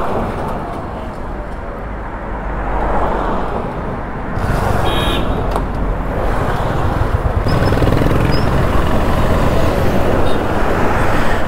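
Road traffic noise as the cars of a convoy drive past. From about halfway the motorcycle's engine and the wind noise grow louder as it moves off. A brief high tone sounds about five seconds in.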